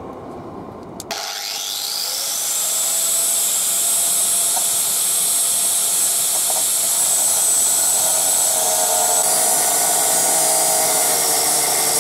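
Angle grinder switched on about a second in, whining up to speed, then running steadily at a high pitch as its cutting disc bites into a rusted, seized suspension bolt.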